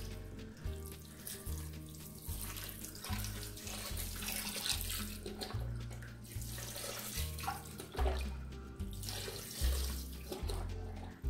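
Chicken broth pouring in a stream from a carton into a pressure cooker's metal inner pot over the ribs, with background music and its low bass notes underneath.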